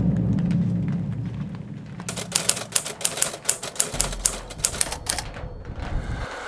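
Typewriter sound effect: a quick run of sharp key clacks, about five or six a second, that begins about two seconds in and stops about five seconds in. It comes over a low rumble that fades away.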